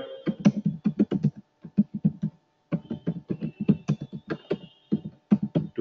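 Typing on a computer keyboard: a quick, irregular run of key clicks with a short pause about halfway through.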